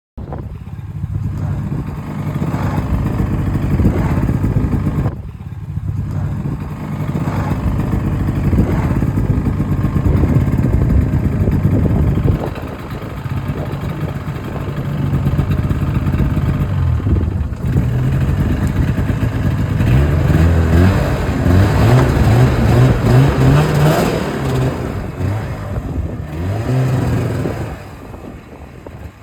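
Snowmobile engine running loud and revving up and down, easing off briefly a few times and dropping away near the end.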